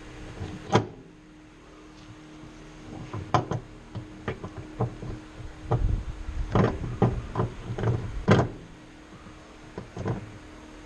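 Irregular sharp knocks and clicks, about a dozen, bunched most thickly a little past the middle, over a faint steady hum: hand work with tools and parts.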